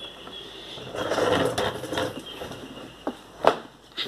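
Rustling and scraping handling noise, swelling for about a second, then a couple of sharp clicks near the end.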